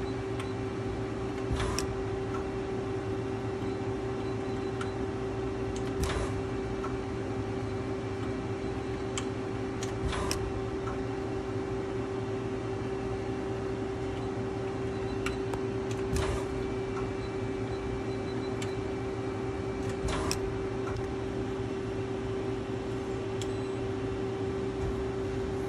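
Okuma LB35II CNC lathe running with a steady hum, broken by about five sharp clicks several seconds apart.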